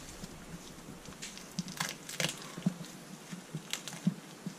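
Skin being pulled back from a partridge's breast by hand: faint wet tearing with a scatter of small, irregular crackles and ticks.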